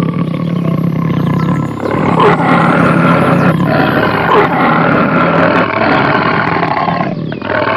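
Loud, continuous animal calling with a low pitch.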